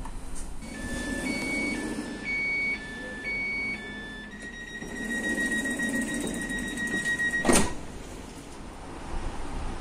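Stadler Citylink tram-train's door-closing warning: for about three seconds, beeps alternate between a lower and a higher pitch, then one continuous tone sounds for about three seconds. It stops as the sliding doors shut with a loud thump, the doors closed before departure.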